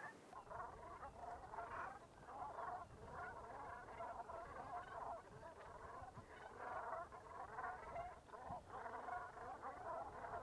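A flock of waterfowl calling: many short, overlapping calls in a steady, faint chatter.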